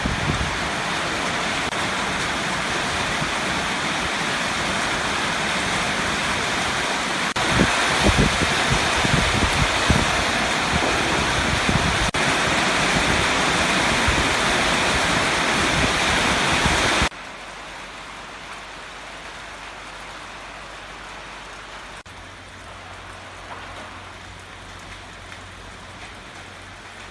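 Heavy rain pouring down in a loud, steady hiss during a thunderstorm. About two-thirds of the way through it cuts off suddenly to a much quieter, softer rain-like noise with a low hum.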